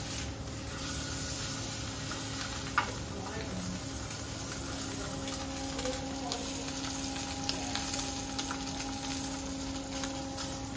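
Sirloin steak sizzling steadily as it sears in a hot frying pan over a gas burner, with a steady hum underneath and one sharp click about three seconds in.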